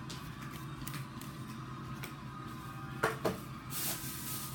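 Quiet handling of paper notes and packaging: faint clicks and rustles over a low steady hum, with a brief pitched sound about three seconds in followed by a short rustle.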